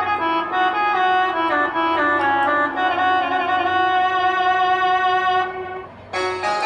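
Roland XPS-10 keyboard playing a melody in a sustained tone with held notes. Near the end the sound drops away briefly and a brighter tone comes in.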